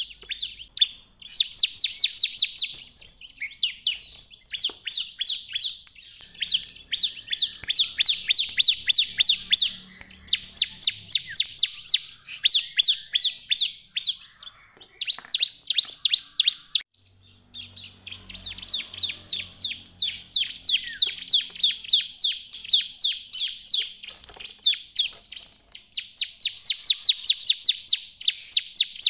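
Bar-winged prinia (ciblek) singing vigorously: fast runs of sharp, high chirps, each run lasting a second or few, repeated again and again with short pauses between.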